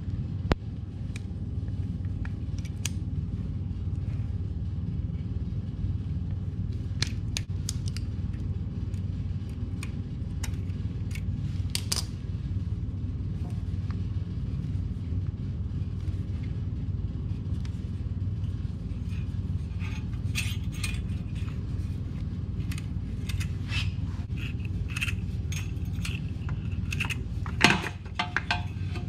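Oil filter being twisted off a 2002 Suzuki GSX-R600 engine by hand: scattered small metallic clicks and clinks, busier in the last third, with one louder knock near the end, over a steady low hum.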